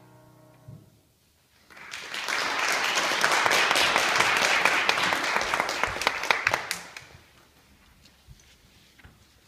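The last piano chord dies away, then an audience applauds for about five seconds before the clapping fades out.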